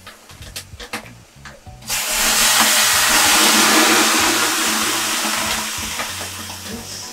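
Water ladled onto hot sauna stones, hissing and sizzling as it flashes to steam. The hiss starts suddenly about two seconds in and slowly dies away.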